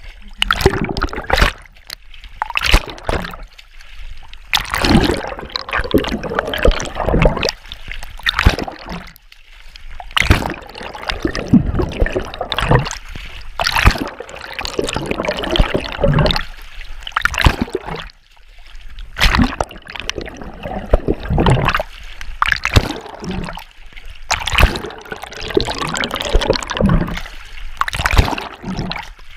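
Water splashing and gurgling around a camera carried by a swimmer in open water. The swim strokes come through as repeated loud splashes roughly every one to two seconds, with short quieter gaps when the camera is under the surface.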